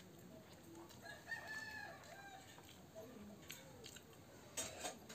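A rooster crows once, a pitched call lasting about a second, starting a second in. Near the end come two short sharp clicks.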